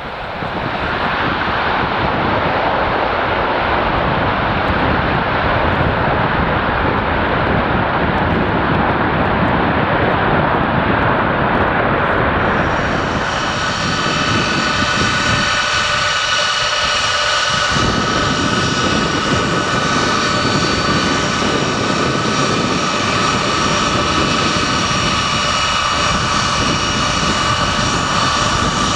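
The four turbofan engines of a Boeing C-17A Globemaster III run loud with a steady roar. About halfway through, a set of steady high-pitched whines joins the roar and holds.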